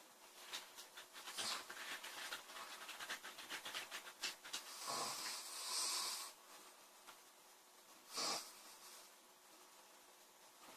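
A girl snoring in her sleep: a long rattling snore of rapid fluttering strokes, then a breathy rush of air about five seconds in, and one short, sharp breath about eight seconds in.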